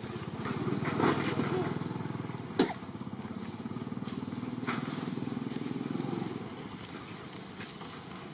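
A motorcycle engine running close by, growing louder about a second in and fading after about six seconds. A single sharp click comes about two and a half seconds in.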